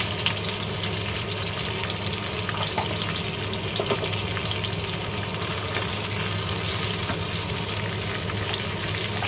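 Whole fish frying in hot oil in a nonstick pan, sizzling steadily, with a low steady hum underneath.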